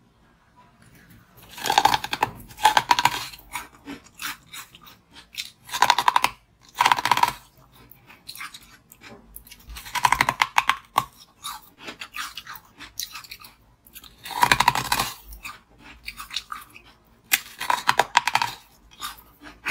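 Close-miked bites into a large frozen ice block, heard as about five bouts of loud, crackly crunching a few seconds apart, with quieter chewing and small cracks between them.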